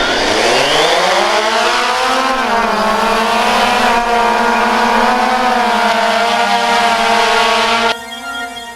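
Small drone's electric motors spinning up at takeoff: a whine that rises in pitch over the first couple of seconds, holds steady, and cuts off suddenly near the end.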